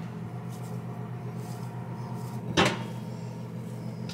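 Steady low hum with a single sharp knock about two and a half seconds in and a lighter knock at the end.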